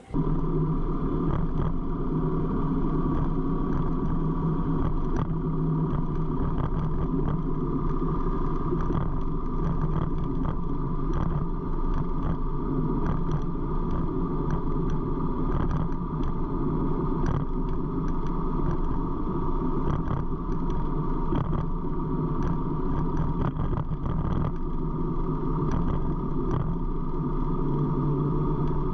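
Harley-Davidson V-twin engine running steadily while riding, heard from the rider's seat behind the fairing windscreen with road noise.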